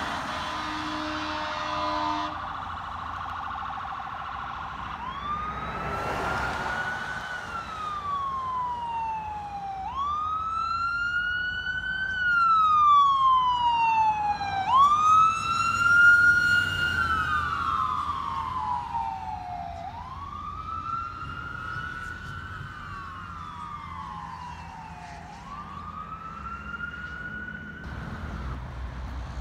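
Ambulance siren on a wail setting: each cycle rises quickly and falls slowly, about five seconds per cycle. It grows louder toward the middle as the ambulance approaches and passes, then fades.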